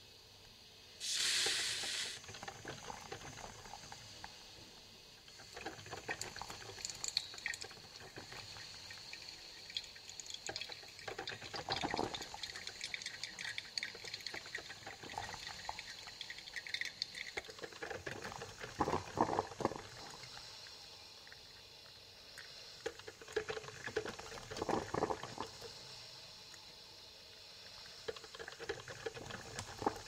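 Coffee maker brewing: hot water gurgling, bubbling and sputtering irregularly, with a short loud hiss about a second in.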